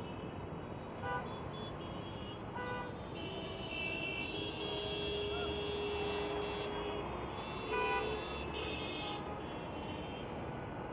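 Steady street traffic noise with brief car-horn toots now and then and a longer held horn note in the middle.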